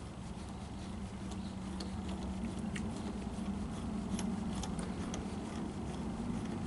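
Scattered small metallic clicks and rubs as the threaded adjusting bolt of a Toolmaster TM-U3 D-bit grinder's head assembly is unscrewed by hand, over a low steady hum.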